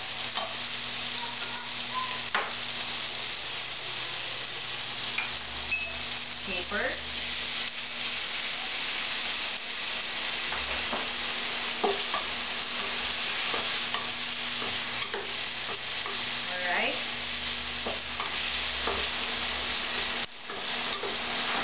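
Oil sizzling steadily in a stainless steel pan as a garlic, onion and tomato pasta sauce is sautéed, with a wooden spoon stirring and scraping against the pan now and then. The sizzle drops away for a moment near the end.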